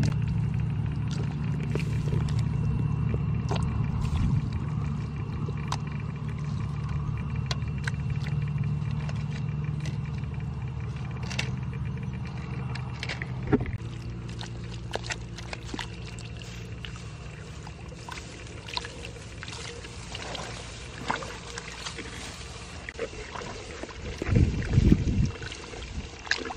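Hands digging and scooping wet mud and muddy water: scattered wet slaps and clicks, with a run of louder splashes and sloshing near the end. A steady low hum runs through the first half and stops about halfway.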